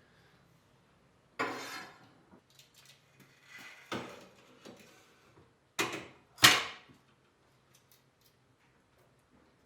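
Four sharp knocks and clatters of hard objects, the loudest about six and a half seconds in.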